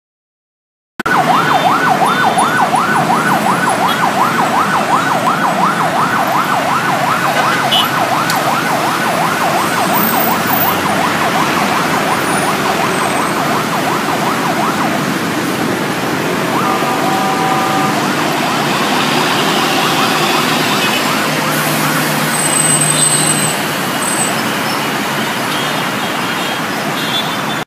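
Ambulance siren in a fast yelp, warbling up and down about three to four times a second, over steady road-traffic noise; the siren fades out about halfway through. A horn sounds for about a second partway through.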